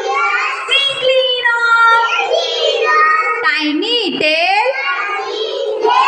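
Children's high-pitched voices calling out in a sing-song way, with a swooping squeal about four seconds in.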